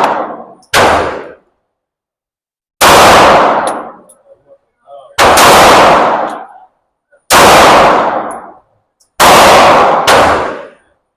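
Pistol shots fired one at a time, six in all, one to two seconds apart with the last two closer together. Each shot rings on for about a second in the echo of an indoor range.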